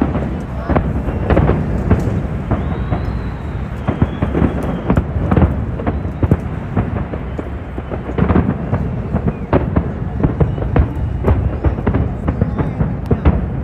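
Big fireworks display: many sharp bangs in quick, irregular succession over a continuous low rumble, with a faint high whistle a few seconds in.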